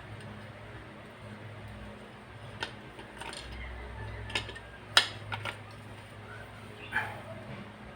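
Metal parts and hand tools clinking and knocking, about six times with the loudest near the middle, as compressor piston and cylinder parts are fitted together, over a steady low hum.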